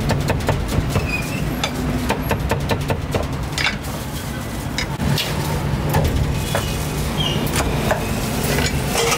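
Busy street-food market ambience: a steady low traffic hum with frequent short clicks and clinks of cooking utensils and dishes.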